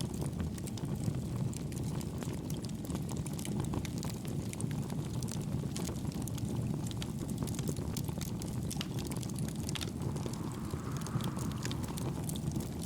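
Wood fire crackling, with many small sharp pops, over a steady low rush of wind.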